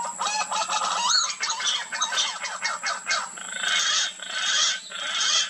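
Pink-necked green pigeons calling from a treetop: a jumble of short clicking and croaking notes, a quick rising whistle about a second in, and harsher rasping calls near the end.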